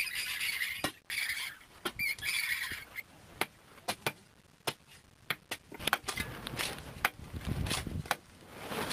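Digging bars and picks striking and scraping the earth and rock floor of a hand-dug well: irregular sharp knocks, with stretches of scraping in the first two seconds.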